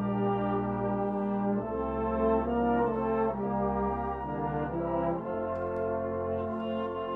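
Brass band of cornets, horns, trombones and tubas playing a slow passage of held chords that change every second or two over a low bass line.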